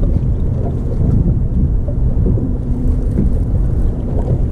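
Wind blowing across the microphone: a loud, steady, low rumbling noise.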